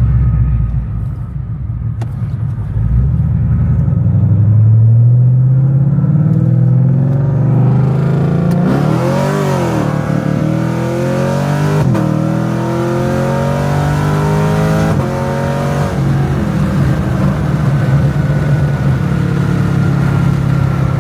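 Cammed Camaro SS V8 accelerating hard on a full-throttle pull. The engine pitch climbs, then drops back at gear changes about twelve and fifteen seconds in.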